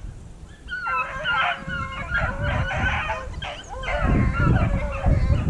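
A pack of rabbit hounds baying, several voices overlapping, starting about a second in. It is the sound of the dogs running a rabbit's trail. Wind rumble on the microphone grows stronger near the end.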